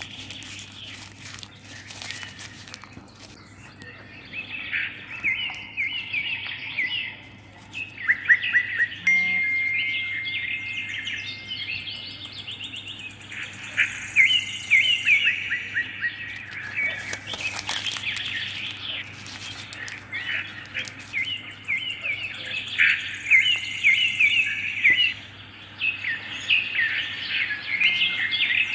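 Small songbirds chirping and trilling over and over, with one long steady whistled note about ten seconds in. A few crackles of crumpled newspaper come near the start.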